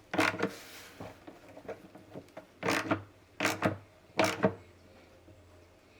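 Ratchet and socket snugging the fuel pump mounting fasteners in a handful of short strokes, the last three about three quarters of a second apart. The fasteners need only light torque because they seal on rubber O-rings.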